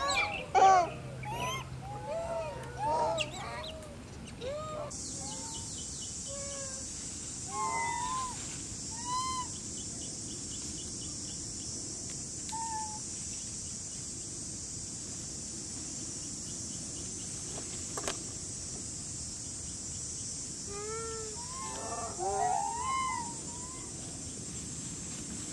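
Rhesus macaques calling: many short rising-and-falling coos and squeaks, thick in the first few seconds, a few scattered after, and a cluster again near the end. From about five seconds in a steady high insect drone runs under them.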